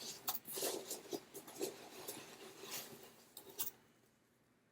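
Rustling and small clicks from items being handled and shifted in an unboxing, with the sounds stopping after about three and a half seconds.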